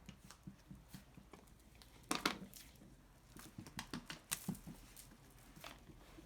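Small handling sounds of markers and slime on a tabletop: scattered light clicks and taps, with a louder rustling clatter about two seconds in and another tap a little past four seconds.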